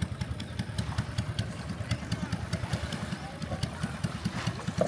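An engine idling nearby with a fast, even low pulsing, with faint voices in the background.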